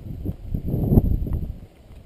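Uneven low rumble of wind and riding noise on a microphone carried on a moving bicycle, dying down near the end, with a couple of faint light clicks.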